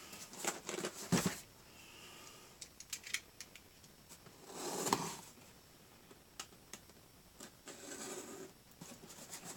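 A cardboard shipping box being worked open by hand: scattered clicks and scratches, with a longer rasping sound about five seconds in.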